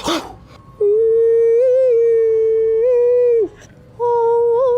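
A person humming or vocalising one long held note with small wavers in pitch, breaking off briefly and then starting a second held note on the same pitch.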